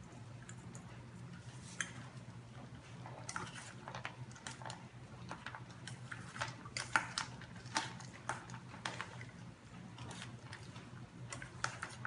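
Formosan mountain dog puppy eating from a metal bowl: irregular clinks and clicks of food and teeth against the steel, a few at first and then several a second from about three seconds in.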